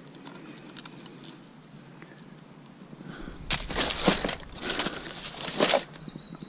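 Rummaging in a fabric tackle bag: after a quiet first half, a run of rustling and scraping with a few clicks for about two and a half seconds as a long unhooking tool is pulled out of the bag.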